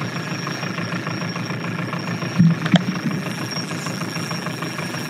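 Outboard boat motor running steadily at slow trolling speed, with a couple of short knocks about halfway through.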